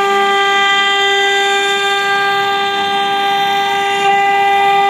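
Acctek CNC router spindle whining at a steady, even pitch as its bit mills out a rectangular pocket in a board.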